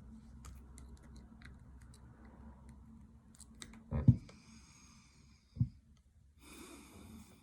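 Steel combination pliers being handled and worked: light clicks as the jaws open and close, a loud knock about four seconds in and another about a second and a half later, each followed by a short stretch of scraping.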